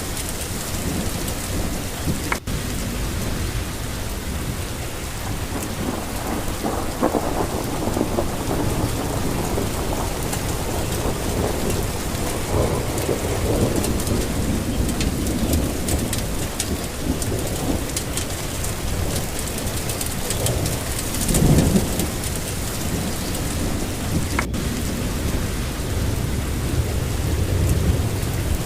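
Steady rain falling with rolling thunder, a loud low rumble of thunder about three quarters of the way through.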